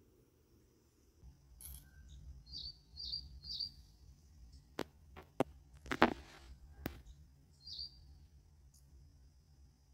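A bird chirping a few short notes, three in quick succession and one more later, over a steady high hiss. A few sharp clicks come in between, the loudest about six seconds in.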